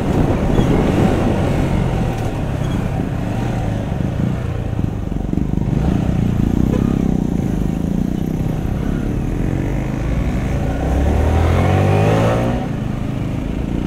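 Yamaha R15 V3's single-cylinder engine running at low speed in stop-and-go traffic, with the throttle opened and closed. Near the end the revs climb, then drop off suddenly.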